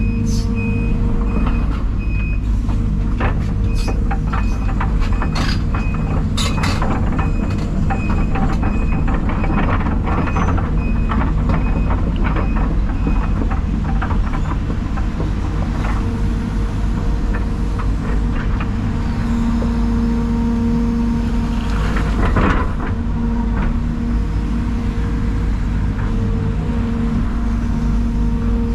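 Heavy diesel equipment running steadily, with a back-up alarm beeping at an even pace until about halfway through. Scattered knocks and clatters run throughout, with a louder knock about three-quarters of the way in.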